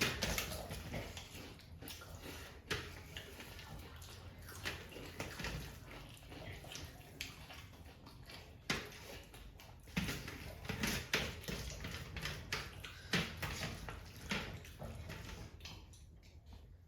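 Faint wet eating sounds of rice and egg curry being chewed and handled, with scattered soft clicks and taps at irregular moments.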